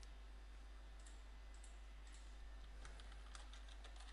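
Faint computer keyboard typing: a quick run of keystrokes starts near the end, after a couple of isolated faint clicks.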